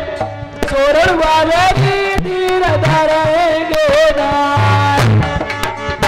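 Live Dhola folk music: a singer holding long wavering notes with vibrato over repeated dholak strokes, the low drum thumps heaviest near the end.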